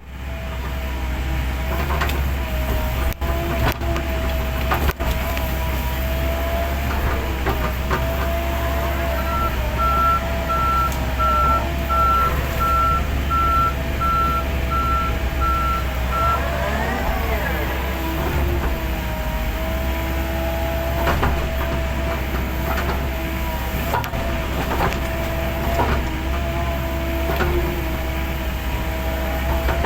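Heavy earthmoving machine running under load, its engine giving a steady low rumble with a wavering whine over it. A run of evenly spaced warning beeps sounds from about a third of the way in to just past the middle, and sharp clanks and knocks come now and then.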